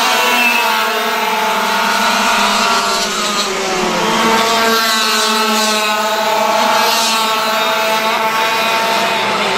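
Racing kart engines running at high revs, several engine notes at once, rising and falling in pitch as the karts brake and accelerate around the track.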